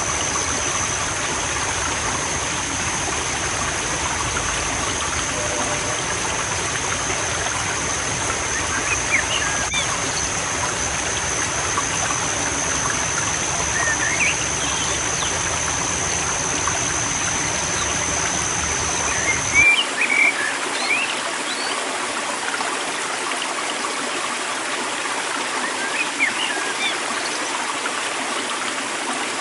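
River water running steadily, with small birds chirping now and then, loudest about two-thirds through. A thin, steady high-pitched tone sounds over the water and stops about two-thirds through.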